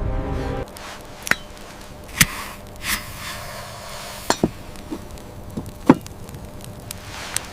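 Background music cuts off about half a second in, then several sharp knocks and cracks come at irregular intervals over a quiet background.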